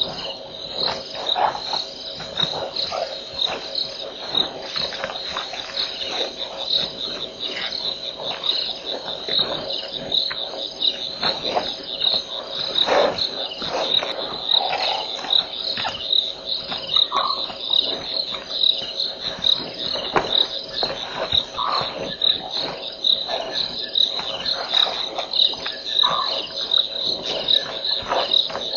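A night chorus of insects chirping in a steady, pulsing rhythm, with a lower steady tone beneath. Scattered faint knocks and a few brief short calls come through now and then.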